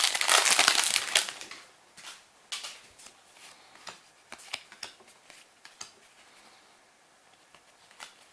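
Foil booster pack wrapper crinkling loudly for about the first second and a half, then trading cards being handled and flicked through with scattered soft clicks that thin out.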